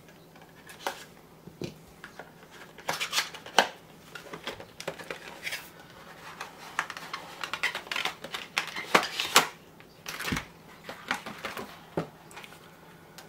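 Cardboard box and clear plastic tray of a power bank's packaging being opened and handled: irregular rustling, scraping and sharp clicks.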